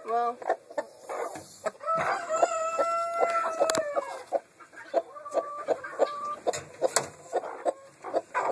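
Chickens clucking in short repeated calls, with one long drawn-out call of about two seconds near the middle and a shorter held call a little later.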